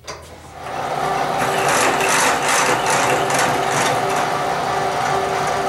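Vertical milling machine starting up about half a second in and then running steadily, a motor hum with a steady whine and a harsh rasping hiss that pulses about twice a second.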